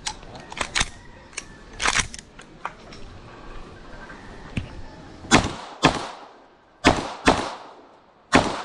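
Ferfrans 9mm pistol-caliber carbine firing in quick strings. Each shot is a sharp crack with a short echo. Quieter cracks come in the first two seconds, then two loud pairs about half a second apart, and one more loud shot near the end.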